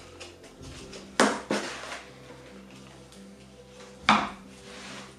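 Compost being scooped and tipped with a plastic hand scoop in a plastic tub: three sharp scrapes, two close together about a second in and one near the end, over faint background music.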